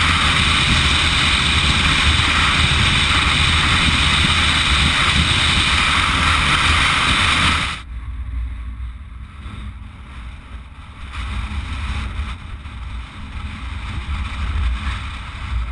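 Loud, steady wind rush on a helmet-mounted camera's microphone over a motorcycle running at road speed in strong wind. About eight seconds in it cuts abruptly to a quieter, gusty low rumble of wind on the microphone beside stopped motorcycles.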